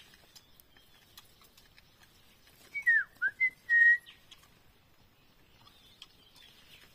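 Someone whistling: a few short notes, each dipping in pitch and rising back, then a brief held note, about three seconds in. Otherwise quiet, with faint small ticks.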